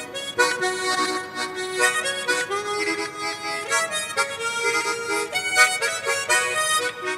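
Harmonica playing a tune, melody notes sounding together with chords.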